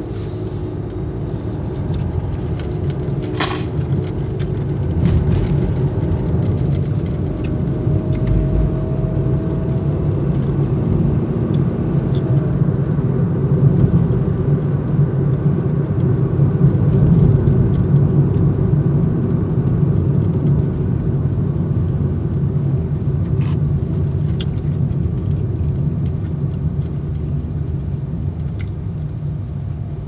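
Steady low rumble of a car idling, heard from inside the closed cabin, swelling a little midway. A few sharp clicks sound now and then.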